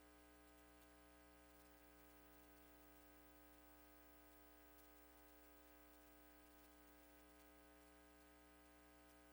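Near silence: a faint, steady electrical hum with light hiss, as of an idle audio line.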